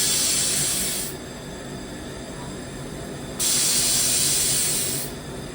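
Handheld LightWELD laser welder firing twice, each burst a hiss lasting under two seconds, with the second starting about three and a half seconds in. A steady low hum runs underneath.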